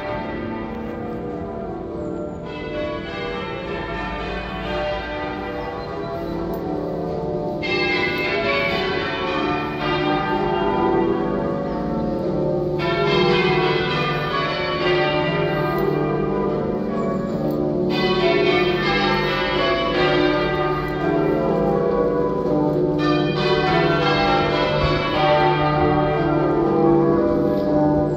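Manchester Cathedral's church bells change ringing half-muffled, as rung for Remembrance. Clear, open rows alternate with duller, muffled rows, each lasting about five seconds, giving the loud–soft echo of half-muffled ringing.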